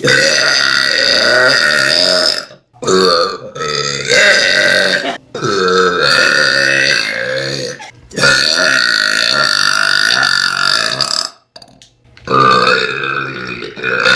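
A person belching loudly, about six long, drawn-out burps in a row with short breaks between them, the longest lasting around three seconds.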